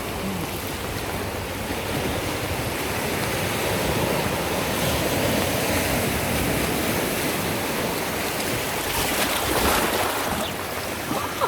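Steady rush of river water, swelling a little midway, with a few brief splashes near the end.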